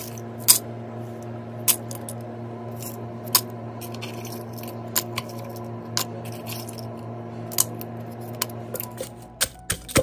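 Dried chillies, garlic, shallots and lemongrass dropped by hand into a stone mortar, each landing with a sharp click, irregularly spaced, over a steady low hum. Near the end a wooden pestle starts pounding in the mortar with a run of quick knocks.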